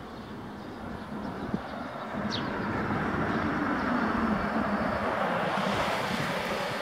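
A car driving past close by: tyre and engine noise swell over a few seconds to a peak as it passes, with a low engine hum that falls in pitch.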